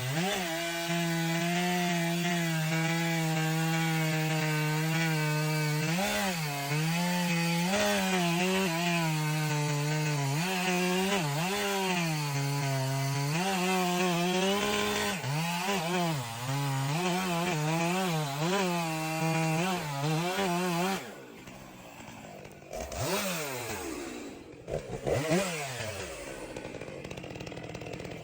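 Chainsaw running at high revs, its pitch dipping and recovering again and again as it bogs under load in the cut. About 21 seconds in the throttle drops to a quieter, lower running with short revs.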